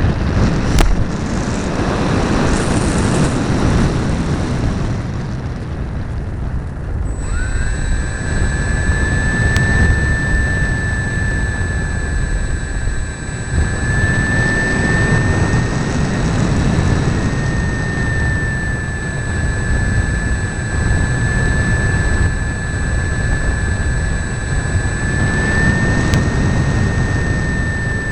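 Onboard sound of a radio-controlled model plane in flight: loud wind rush over the airframe. About seven seconds in, a high steady motor whine comes in, rising briefly as it spools up, then holds with slight changes in pitch as the throttle varies.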